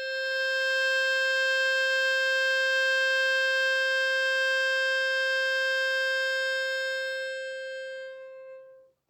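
A single note held steadily on a small blown wind instrument for about nine seconds, fading as the breath runs out near the end, sounded on the exhale of a meditation breath.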